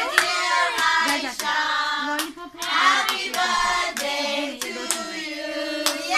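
Children singing together in held notes, with sharp hand claps scattered through the singing.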